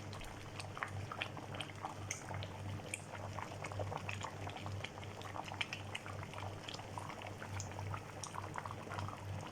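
Pot of mung bean stew with beef and spinach simmering, bubbling with many small irregular pops over a low steady hum.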